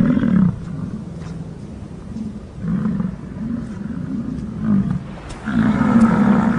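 American bison bull bellowing in the rut: about four low, drawn-out roars, the loudest near the end.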